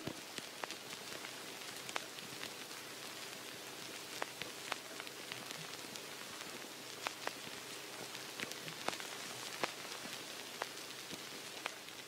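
Old-film crackle effect: a faint steady hiss with irregular clicks and pops.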